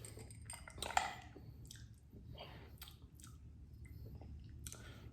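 A person chewing and eating close to the microphone, with irregular wet mouth smacks and clicks.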